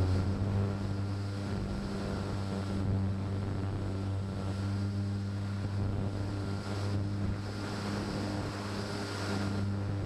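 Onboard sound of an FPV model plane in flight: its motor and propeller hum steadily while wind rushes over the camera microphone.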